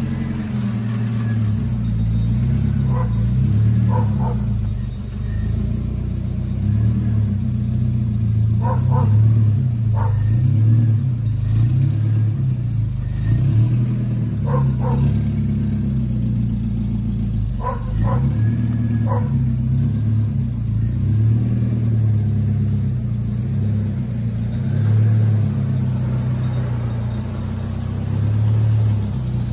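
Nissan Hardbody D21 pickup's engine idling steadily with a lumpy low pulse. Short paired high-pitched pips come every few seconds over it.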